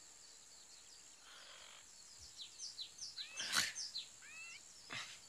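Jungle ambience of birds chirping: many short, high calls repeated throughout, with a few curved, sliding calls past the middle, over a faint steady high tone.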